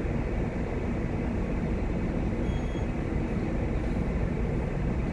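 Steady low drone of a large chemical tanker's machinery while the ship is underway, with a brief faint high beep about two and a half seconds in.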